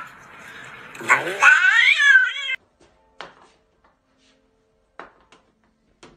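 A cat yowling: a quieter noisy stretch, then a loud, wavering, drawn-out call that cuts off suddenly about two and a half seconds in. After that there are only a few faint knocks.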